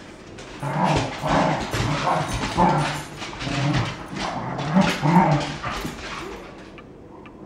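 Dogs play-fighting, a Cardigan Welsh corgi puppy among them, giving a run of short barks and yips. They are loudest about five seconds in and quieter over the last couple of seconds.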